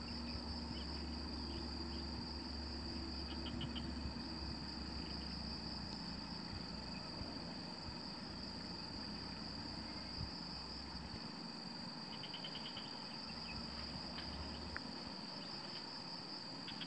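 Continuous high-pitched insect chorus from the forest, with a few short rapid trills twice. A low rumble underneath drops away about eleven seconds in.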